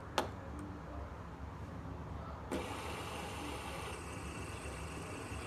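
A finger flicks a three-lobed fidget spinner with a sharp click. A second flick about two and a half seconds in sets its ball bearings whirring with a steady hiss-like whir, over a low steady background rumble.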